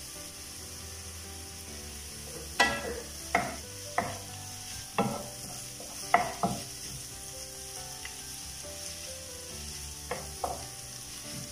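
Sliced onion and cabbage sizzling in oil in a non-stick pan, stirred with a wooden spatula. The spatula knocks against the pan several times from about two to seven seconds in, and twice more near the end.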